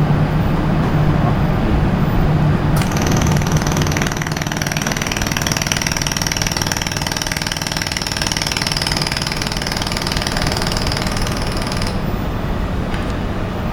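Pipe laser welding machine with rotary axis welding a pipe: a high hissing whine starts about three seconds in and cuts off about nine seconds later, over a steady low machine hum.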